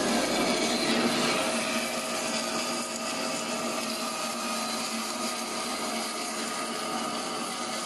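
CNC abrasive-wire foam cutter running, its cutting wire sawing through rigid PUR foam: a steady rasping noise over a faint motor hum, a little louder for the first second or so.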